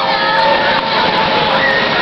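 Riders on a swinging pirate-ship ride screaming together: a long held scream over a dense din of many voices, with another scream rising near the end.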